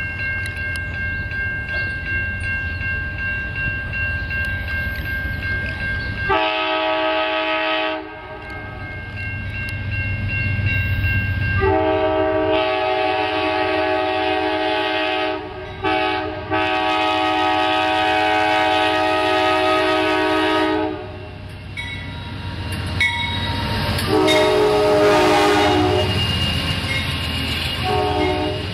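Train air horn sounding a chord in a long, long, short, long sequence, the pattern used at a grade crossing, over the low rumble of the train; further horn blasts come near the end.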